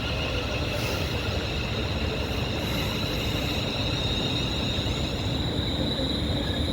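Train running through a station: a steady rumble with a high, steady whine held over it.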